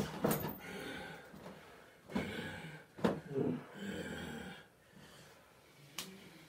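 Heavy, laboured breathing from a wrestler: several long noisy breaths in and out. A sharp knock comes about three seconds in and another near the end.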